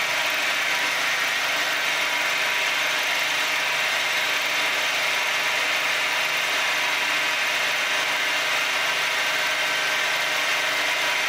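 Milling machine running a homemade fly cutter with a carbide lathe insert through a test facing cut: a steady mechanical hum and hiss with a few even tones, unchanging throughout.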